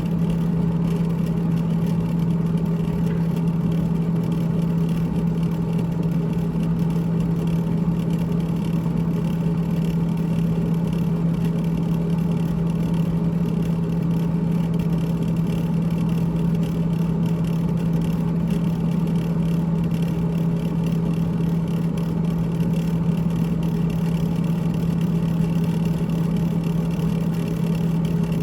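GE GTH18XCTZRBB refrigerator running with a steady, unbroken low hum and a continuous rattle, which the owner puts down to the evaporator fan.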